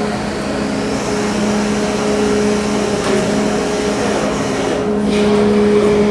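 Ferry's machinery running steadily: a constant low hum with a noisy mechanical wash.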